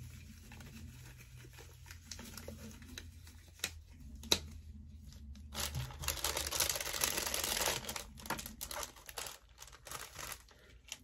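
Packaging being opened and handled: a couple of sharp clicks, then a stretch of loud plastic crinkling and tearing about six seconds in, trailing off into lighter rustling.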